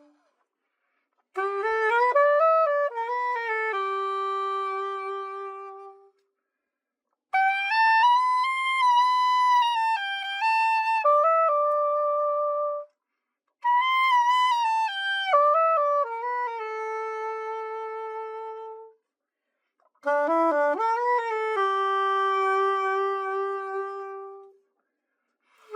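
Yanagisawa S-901 soprano saxophone played in four short melodic phrases, each ending on a long held note, with silence between them: a play test after a complete overhaul.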